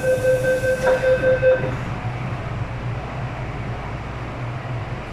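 MTR M-Train door-closing warning beeping in rapid pulses for the first second and a half as the doors shut, with a knock about a second in. Then the steady low hum of the train's equipment while it stands.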